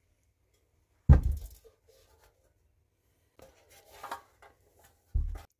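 Handling noises on a hard surface. A sharp knock comes about a second in, quieter rustling and clatter follow around four seconds, and a duller thud comes near the end.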